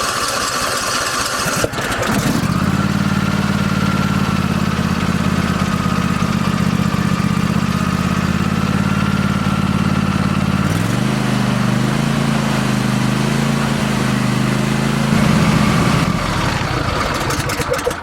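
Riding lawn mower's 24-horsepower engine, started without a choke, running unevenly for the first couple of seconds and then settling into a steady run. Its tone changes about eleven seconds in.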